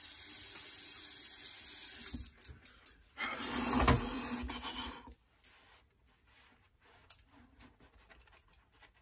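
Tap water running into a sink as a steady hiss, shut off about two seconds in. A few clicks follow, then about two seconds of louder rustling as a towel is worked over the wet face, then faint scattered taps.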